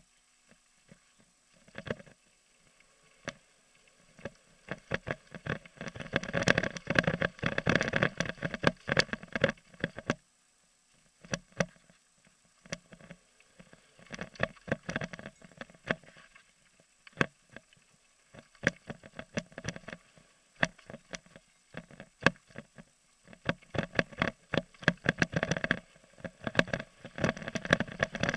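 Mountain bike rattling and clattering over a rough gravel downhill trail: chain slap, tyres hitting stones and knocks through the frame and suspension, in uneven bursts with short quieter stretches.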